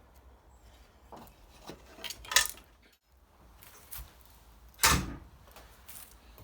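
Metal parts knocking and clattering on a workbench, with two louder clanks about two and a half and five seconds in.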